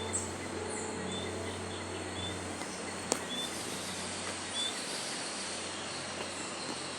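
Countryside morning ambience: small birds chirping, a short high call repeated about once a second, over a steady hiss of insects and background noise. A low hum fades out about two and a half seconds in, and a single sharp click sounds about three seconds in.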